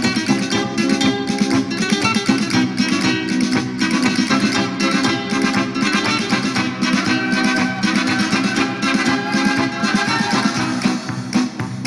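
Paso doble dance music led by fast, rhythmic strummed guitar in flamenco style.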